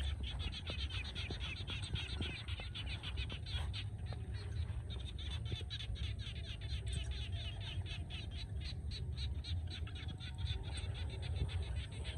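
A dense, unbroken chorus of quick, repeated chirping calls from wild animals, many pulses a second, over a steady low rumble.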